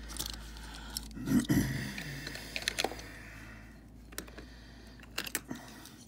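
Small clicks and light rattles of die-cast metal and plastic toy vehicles being handled in the fingers, with a louder knock about a second and a half in.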